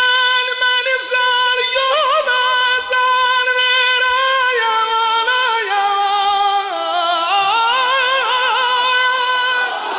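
A man's unaccompanied voice sings a long wordless lament phrase. He holds a high note with quavering ornaments, steps down in pitch through the middle, and climbs back before breaking off just before the end.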